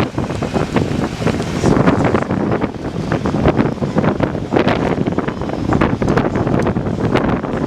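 A vehicle driving over a rough road: a constant rumble with frequent irregular knocks and rattles from bumps, and wind buffeting the microphone.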